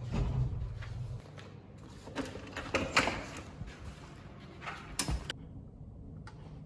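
Low hum of a lift car that stops about a second in, then a few sharp clicks and knocks of a key card being used at a room door's lock, with a last knock about five seconds in.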